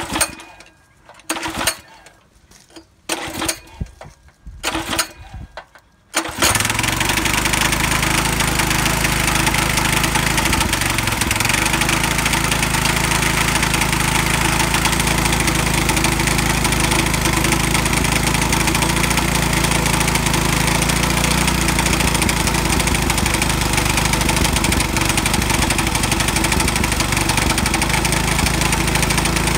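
196cc single-cylinder four-stroke kart engine, a Honda GX200-type clone with a lightened flywheel and stock muffler, being started: several short cranking bursts with gaps, then it catches about six seconds in and runs steadily.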